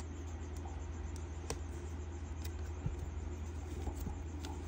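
A few faint plastic clicks and rustles as a sleeved photo card is handled in a rigid plastic top loader, over a steady low hum.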